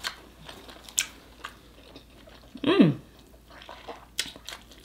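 Close-up eating sounds of a person chewing king crab: scattered wet mouth clicks and smacks. About three seconds in there is one short wordless voice sound that falls in pitch.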